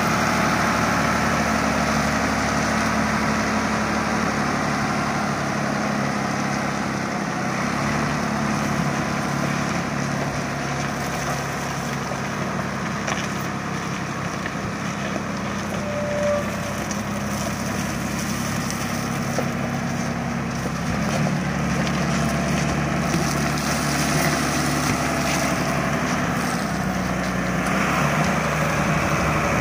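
Volvo BM 861 articulated dump truck's diesel engine idling steadily, with a slight change in its note about two-thirds of the way through.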